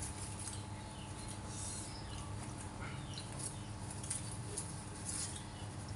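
Faint scrapes and small clicks of a paring knife cutting the skin off a piece of green produce held in the hand.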